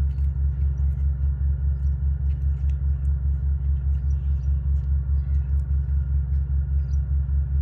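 Steady low engine-like rumble that pulses evenly about four to five times a second, with a few faint ticks above it.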